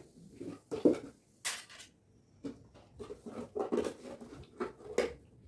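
Handling of a spoon and small containers: a run of irregular scrapes, light knocks and rustles, with a short hiss about one and a half seconds in.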